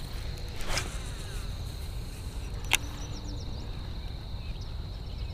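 Outdoor ambience of a steady, high-pitched insect drone over a low rumble, with a brief falling swish about a second in and a single sharp click near the middle.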